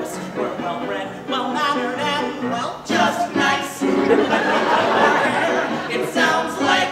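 Male voices singing a musical-theatre song, a lead voice with a group of men; a rougher, noisier stretch comes in the middle before the singing picks up again.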